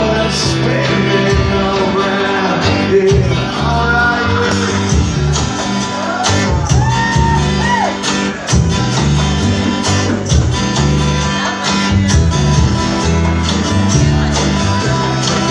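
Live acoustic guitar strummed in a steady rhythm of changing chords while a man sings over it, the singing mostly in the first half.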